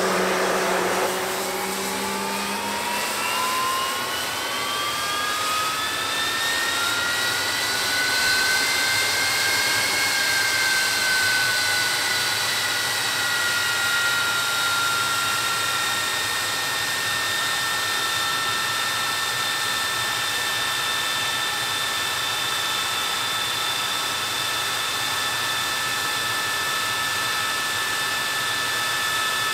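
MiG-23's turbojet engine spooling up on start: a whine rises for about ten seconds, eases down a little and then holds steady at idle over a steady rush of air. A low hum fades out in the first few seconds.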